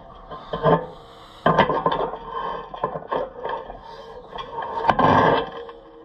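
A big wrench turning the large gang-bolt nut on an Oliver 252 disc harrow: metal scraping and clanking in several separate strokes, the loudest near the end.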